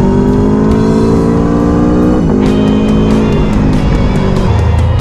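Aprilia Tuono V4 1100 Factory's V4 engine accelerating, its pitch rising for about two seconds and then dropping sharply as it shifts up. Music with guitar and drums plays loudly over it.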